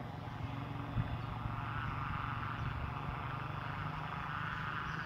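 Kite hummer on a pegon kite droning overhead, a wavering tone that swells and fades like a distant aircraft over a steady low hum. Its bow broke and was shortened, which the flyer says spoiled the sound.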